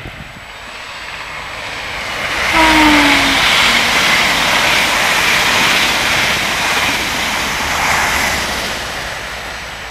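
East Coast express train passing through a station at speed: the rush of wheels and air builds over the first couple of seconds, stays loud for about six seconds, then fades. A brief falling whine comes about two and a half seconds in, as the front of the train goes by.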